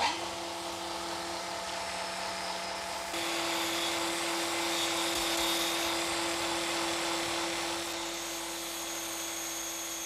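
Small electric rotary carving tool with a grinding bit running steadily with a high whine as it grinds a tiger tooth. The grinding gets louder about three seconds in.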